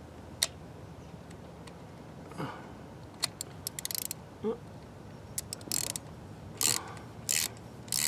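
Socket ratchet clicking as a spark plug is tightened down: a quick run of clicks about three seconds in, then several separate short back-swing rattles in the second half.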